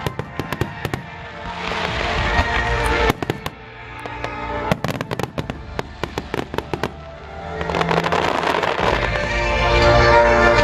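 Fireworks display: aerial shells bursting in quick volleys of sharp bangs and crackles, thickest in the first second and again from about three to seven seconds in, over music that swells near the end.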